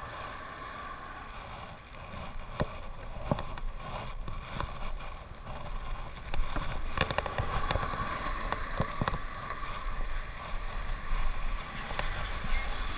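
Riding noise from a bicycle on a tarmac road: wind rumble on the microphone and tyre noise, with sharp clicks and knocks every so often as the bike rattles over the road surface.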